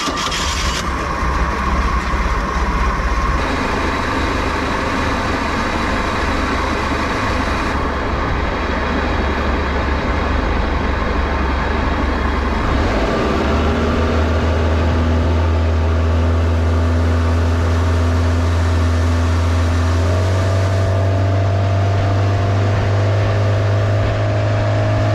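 Small boat's inboard engine running under way, its pitch stepping up about halfway through and again near the end as the throttle is opened.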